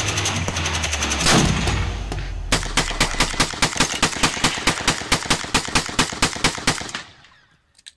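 A long string of rapid gunshots. The first two and a half seconds hold dense, fast shooting over a low steady drone. Then come evenly spaced rifle shots, about five a second, stopping about seven seconds in.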